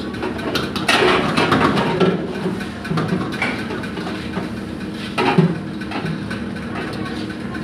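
Metal spatula scraping and clattering against a wok as fried rice is stirred and tossed, with louder bursts about a second in and again a little after five seconds, over a steady background hum.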